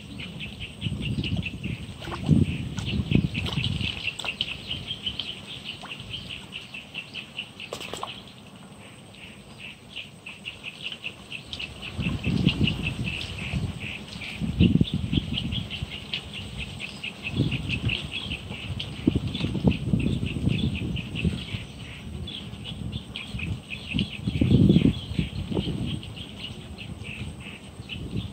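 Outdoor riverbank ambience: a continuous, rapid, high-pitched chirring chorus of wildlife, with irregular low rumbles coming and going.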